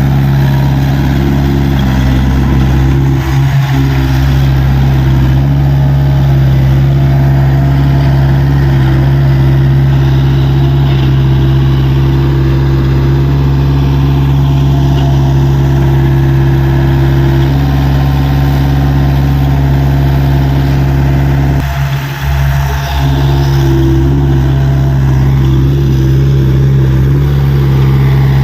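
Diesel engine of a Tata Hitachi EX70 excavator running steadily, with two brief dips in level, one a few seconds in and one about 22 seconds in.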